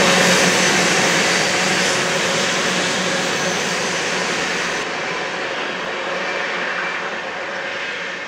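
Steel wheels of a mixed freight train's cars rolling along the rails, a steady noise that slowly fades as the end of the train moves away, turning duller about five seconds in.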